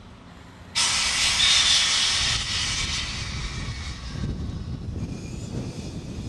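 A sudden loud hiss of compressed air venting from a standing JNR Class EF64 electric locomotive. It starts about a second in, is strongest for about a second and a half and fades out over the next two. A low steady rumble carries on after it.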